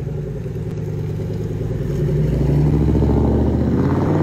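Chevrolet Impala SS's LS4 V8 engine and exhaust as the car pulls away. The note rises in pitch and gets louder from about two seconds in.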